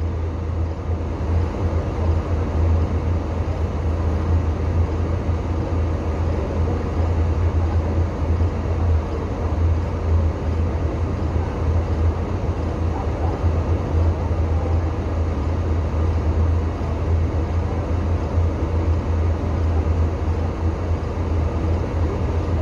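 A vehicle engine running steadily, a low, even rumble with no change in speed.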